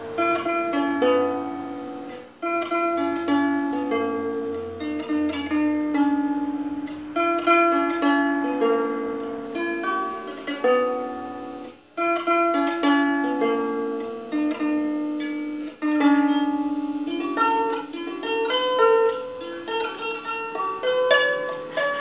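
Muses Heather 22-string lever harp plucked with one hand, playing a slow melody of single notes that ring and fade into one another, with a brief break about twelve seconds in.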